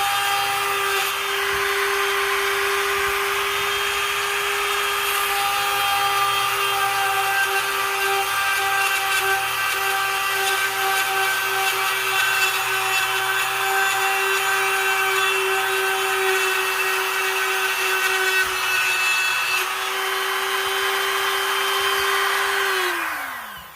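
A small power drill runs at a steady high whine while its bit grinds a hole through a piece of china, with a gritty hiss over the tone. Near the end it is switched off and winds down, its pitch falling away.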